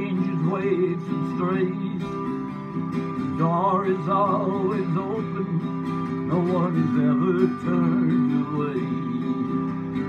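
Acoustic guitar strummed steadily under a man singing, a country song with a wavering vibrato on the held vocal notes.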